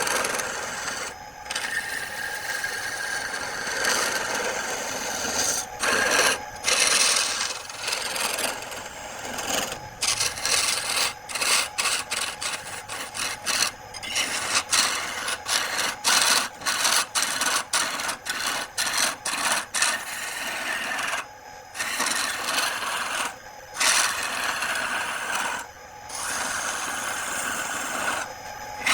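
Wood being cut or scraped on a turning lathe: a steady rasping scrape, broken by many short stops, coming quickly one after another in the middle of the stretch.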